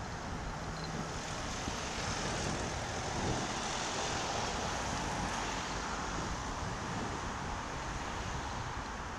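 Wind rushing over the microphone of a bicycle-mounted camera while riding, mixed with road traffic noise, swelling for a few seconds in the middle as a van passes close alongside.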